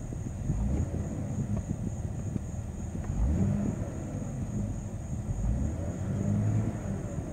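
The Jeep Grand Cherokee's 4.0-litre inline-six engine idling at operating temperature, heard from inside the cabin as a steady low rumble that swells a few times.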